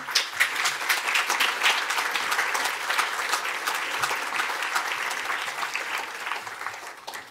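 Audience applauding: many hands clapping in a dense, steady patter that fades a little near the end.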